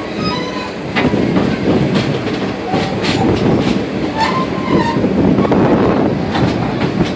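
Passenger car rolling over the track, heard from its vestibule: a steady rumble with scattered clicks over the rail joints and short wheel squeals at the start and about four seconds in.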